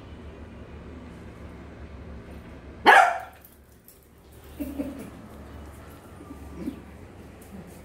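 Beagle puppy barking once, loud and sharp, about three seconds in, with a couple of softer short sounds later.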